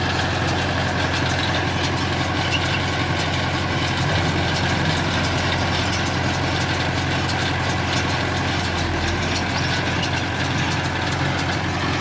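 Mahindra Yuvo 575 tractor's four-cylinder diesel running steadily while it drives a PTO-powered round baler baling paddy straw, with continuous fast clicking and rattling from the baler's chain drive and rollers.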